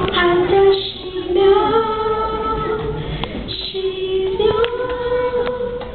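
A young girl singing into a handheld microphone, holding long, steady notes.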